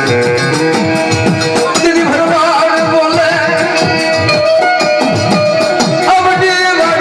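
Gujarati devotional folk music with a fast, steady percussion beat under held melodic notes; a wavering melodic line comes in about two seconds in.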